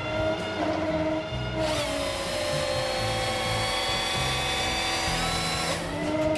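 A power saw running at high speed, a steady whine that drops in pitch about two seconds in and climbs back near the end, with background music underneath.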